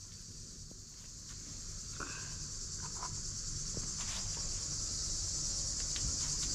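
A steady chorus of insects chirping, a high continuous shrill that runs on without a break, typical of a warm Mediterranean evening.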